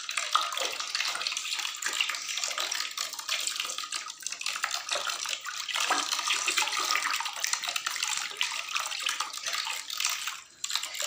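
Water splashing and sloshing in a plastic basin full of catfish, a steady run of small splashes with no break until a short lull near the end.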